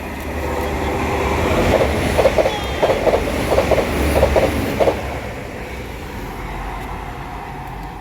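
A train passing at speed, its wheels clattering over rail joints in quick paired clacks, loudest between about two and five seconds in, then fading as it goes away.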